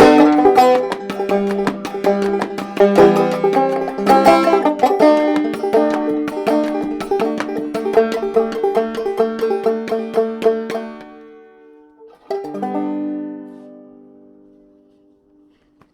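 Mulheron open-back banjo played clawhammer style, the closing instrumental bars of the tune: quick picked notes that thin out and fade, then a single final chord struck about twelve seconds in that rings out and dies away.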